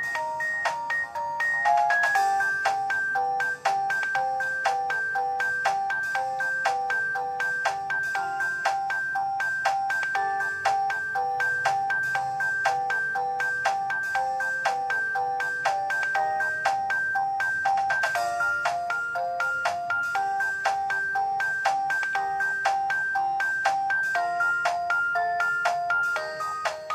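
Samsung ringtone playing on a ZTE Z222 mobile phone: a synthesized melody of short, rapidly repeated notes over a bouncing bass line, with a steady ticking beat. The tune moves to a new phrase about two seconds in and again around eighteen seconds.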